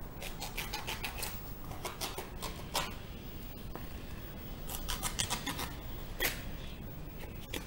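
Irregular short clicks and rustling scrapes coming in quick clusters, with sharper single clicks a little under three seconds in and just after six seconds.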